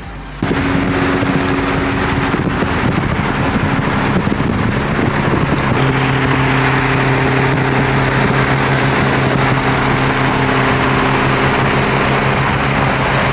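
Car driving at a steady speed: engine drone holding a constant pitch under road and wind noise.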